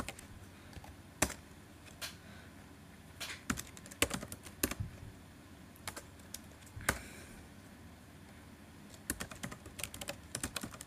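Computer keyboard keys clicking in short, scattered runs of keystrokes as text is typed, with a pause of a second or two about two-thirds of the way through, then a quicker run of keystrokes near the end.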